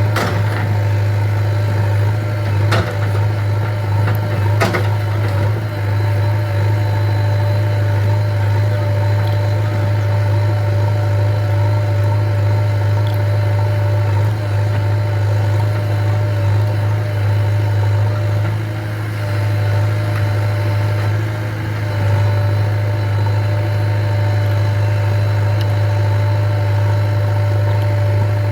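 JCB 3DX Eco Xpert 49 hp backhoe loader's diesel engine running steadily while the machine digs, with two sharp knocks a few seconds in and a brief easing of the engine about two-thirds of the way through.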